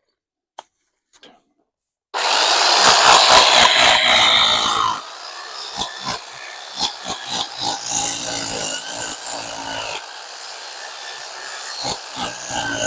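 A power tool biting into the concrete-mortared stone wall. It starts suddenly about two seconds in, runs loudest for about three seconds, then carries on quieter with many short knocks and clatters.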